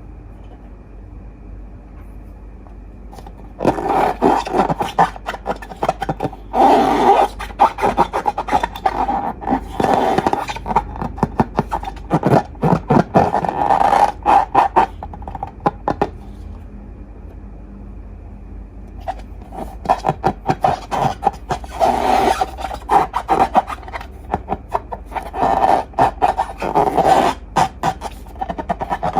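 Slime being worked and stirred, with sticky scraping and rubbing full of small crackling clicks in two long spells, a quiet pause between them.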